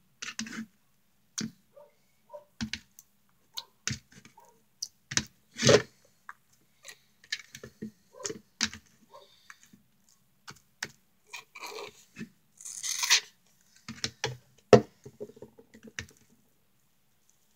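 Sticky slime squeezed and kneaded by hand, making irregular wet clicks and squelches, with a brief hissing stretch a little past the middle.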